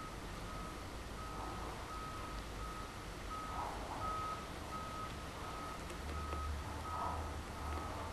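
Evenly repeated electronic beeps on one steady pitch, about three every two seconds, over a low rumble.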